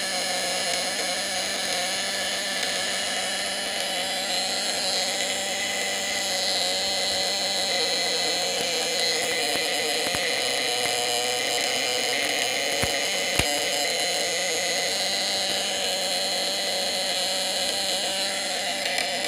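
Homemade battery-powered fish-shocker inverter, a hand-wound copper coil transformer, buzzing steadily while it runs on two batteries and lights 400-watt bulbs. Two sharp clicks about half a second apart come a little past the middle.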